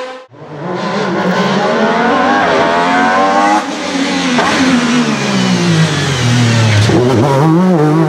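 Racing car engine at high revs after a brief cut at the very start: the pitch climbs, drops suddenly about three and a half seconds in, then falls steadily before a few quick rises and falls near the end.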